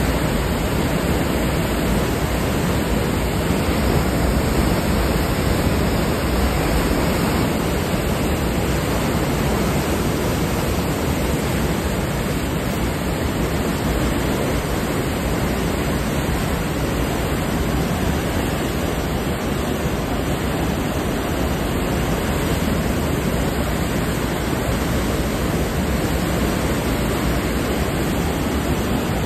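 Steady rushing of churning white water along the hull of a Navy ship running at high speed.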